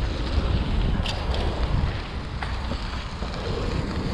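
Wind buffeting the microphone of a chest-mounted GoPro HERO7 Black while riding a bicycle, a steady low rumble with a few faint ticks.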